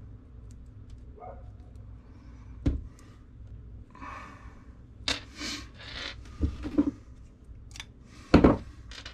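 Handling noises of monofilament fishing line and a three-way swivel being worked and set down on a tabletop: scattered rustles and small clicks, a cluster of sharper clicks in the middle and one loud knock near the end, over a low steady hum.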